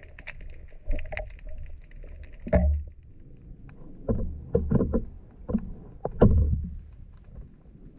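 Underwater sound picked up by a diver's camera: a low rumble of moving water with irregular clicks and knocks. The knocks bunch together from about four seconds in, and the loudest comes a little after six seconds.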